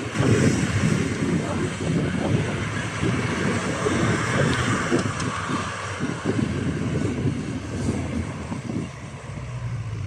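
Nissan Terrano I SUV engine revving under load as it climbs a snowy slope, with its tyres spinning and throwing snow. The noise is loud and continuous.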